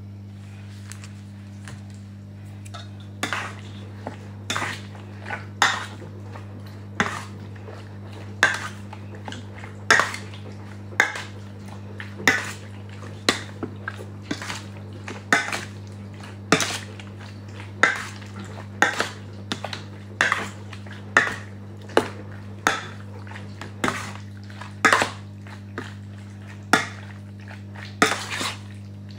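A metal spoon clinking against a stainless steel bowl while mixing raw beef cubes with seasoning, about one clink a second from about three seconds in. A steady low hum runs underneath.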